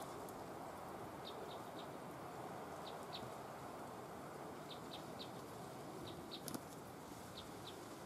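Small songbirds calling: short, high chirps in twos and threes every second or so over a steady background hiss. A single sharp tap comes near the end.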